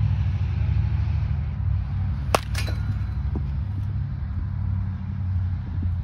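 Baseball bat striking a pitched ball: one sharp crack about two and a half seconds in, followed a moment later by a softer knock. A steady low rumble runs underneath.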